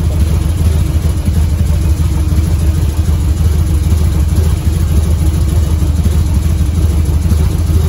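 Carbureted Harley-Davidson V-twin engine, fully warmed up, idling steadily at about 900 rpm, set ready for tuning the carburetor's idle mixture screw.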